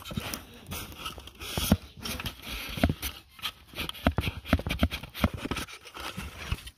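Handling noise on a phone's microphone: close, irregular rustling and scraping with frequent bumps as the covered phone is moved against fabric.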